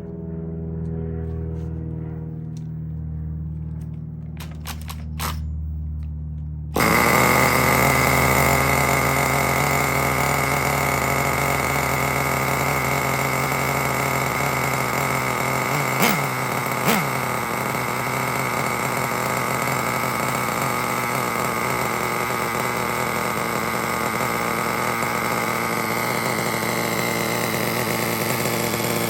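Traxxas T-Maxx's 3.3 nitro two-stroke engine cold-starting about seven seconds in, after a low hum and a few clicks, then running steadily with a high whine and two short spikes near the middle. It runs on freshly replaced front and rear crank bearings, with no grinding noise.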